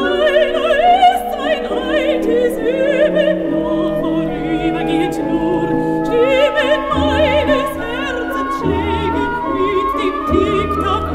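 Operetta recording: a singing voice with wide vibrato over an orchestra playing sustained chords.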